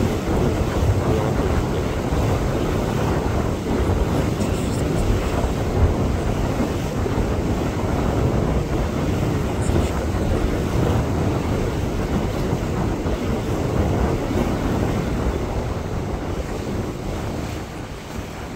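Wind buffeting the microphone: a continuous, gusty low rumble that eases slightly near the end.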